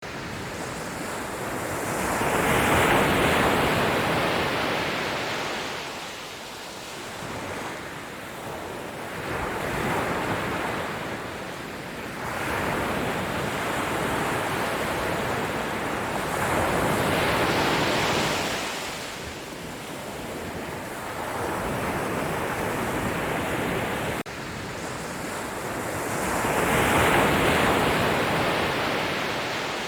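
Sea waves washing in, rising and falling in slow surges, the biggest about every seven to nine seconds.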